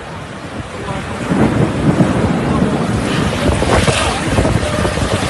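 Strong hurricane wind blowing and buffeting the microphone, getting louder in gusts about a second in.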